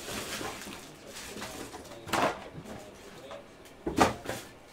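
Tabletop handling noises of a trading-card box and packs being moved about: low rustling, with a sharp knock about two seconds in and another near the end.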